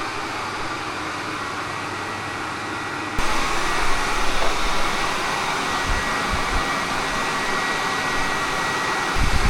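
Steady whirring noise of a small electric motor with a thin high whine; it jumps louder about three seconds in.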